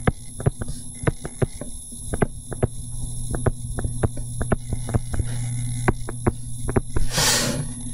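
A stylus tapping and clicking on a tablet screen while writing, in light, irregular clicks over a steady low electrical hum. A short hiss comes near the end.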